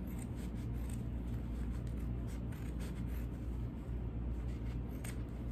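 Soft scratching and rustling of a large surgical gauze dressing pad being handled and cut into pieces, in many small irregular strokes.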